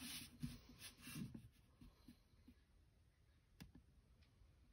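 Near silence, with a few faint, soft sounds of a graphite pencil ruling lines along a plastic set square on paper, and one faint click about three and a half seconds in.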